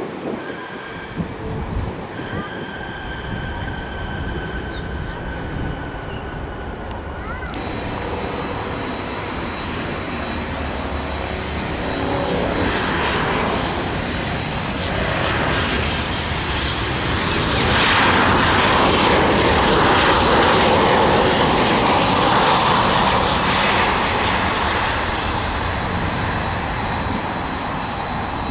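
Jet airliner landing: a Boeing 737's twin turbofan engines on final approach, their noise building to a loud pass and then easing off as it touches down and rolls out. A steady high whine runs through the engine noise.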